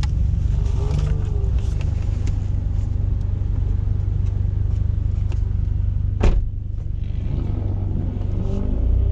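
Toyota GR86's 2.4-litre flat-four engine running at low revs, heard from inside the cabin as a steady low hum. A single brief sharp noise comes about six seconds in, and the engine note shifts near the end.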